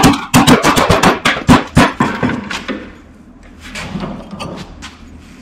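A quick series of sharp hammer blows on metal, about five a second, that stops near the halfway point, followed by a few lighter knocks.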